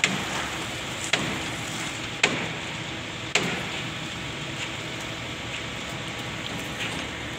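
Site noise during concrete screeding: a steady rushing background with a faint hum, broken by four sharp knocks about a second apart in the first half.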